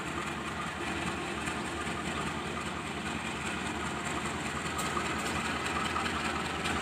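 Diesel-electric locomotive of a shunting passenger train running at low speed across the station tracks, heard from a distance as a steady engine sound.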